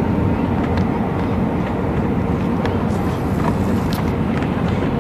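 Steady low rumble of an Airbus A319 airliner heard inside the cabin, with a few light clicks or rattles.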